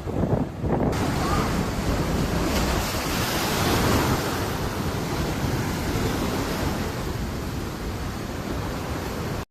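Heavy storm surf breaking, with strong wind buffeting the microphone. About a second in, the hiss of rushing surf swells up suddenly, then eases a little over the last few seconds.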